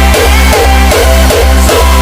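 Electronic music with a heavy bass line and a steady beat, with guitar-like plucked notes.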